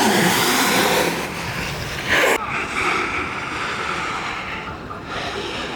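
Freebord wheels rolling on asphalt with wind rushing over the microphone, loudest in the first two seconds, with a brief loud scrape a little over two seconds in.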